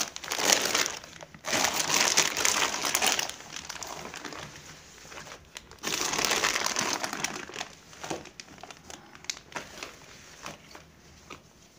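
Clear plastic packet of latex balloons crinkling as it is handled and emptied, in three loud bouts, followed by softer rustling of the loose balloons.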